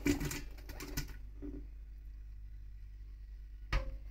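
Sliced onions being swept off a plastic cutting board into a stainless steel pot of oil: a burst of soft scrapes and taps in the first second or so, then one sharp knock near the end.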